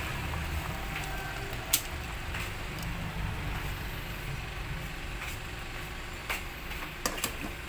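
Steady low rumble of a gas stove burner under a pot of boiling soup, with a few sharp clicks, the clearest about two seconds in and a small cluster near the end.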